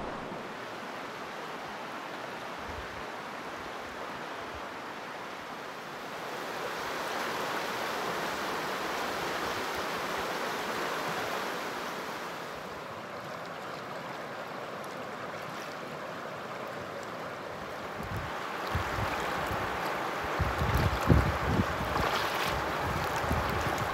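Shallow creek rapids rushing steadily over rocks, an even wash of water noise, with a few low bumps near the end.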